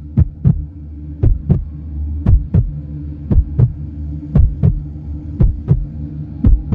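Heartbeat sound effect: paired low thumps, a lub-dub about once a second, over a steady low hum.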